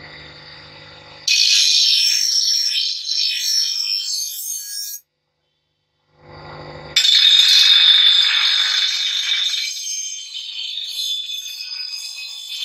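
Forged chopper blade being ground on a bench grinder's spinning wheel: a loud, high-pitched grinding hiss over the motor's low hum. The grinding cuts out abruptly for about a second midway, then the motor hum returns and the grinding starts again, louder.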